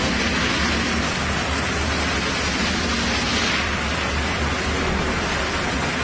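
Sawmill machinery running: a steady low hum under a broad hiss, the hiss swelling for about a second and a half near the middle.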